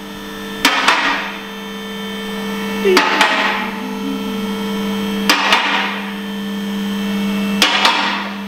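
Background music with a slow beat: a sharp hit about every two seconds over held low notes.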